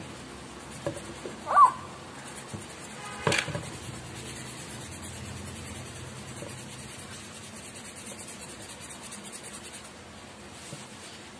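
Felt-tip marker rubbing back and forth on cardboard as a circle is coloured in. There is a short, loud squeak about a second and a half in, and a sharp knock a little after three seconds, as a roll of packing tape is handled on the table.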